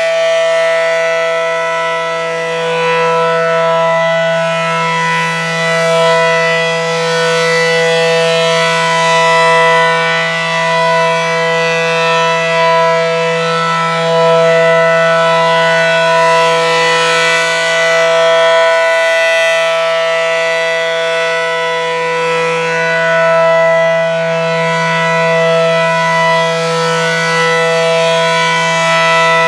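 ACA Allertor outdoor warning siren sounding its steady alert signal: a low, chord-like tone of several pitches held without rising or falling. It swells and fades in loudness every several seconds.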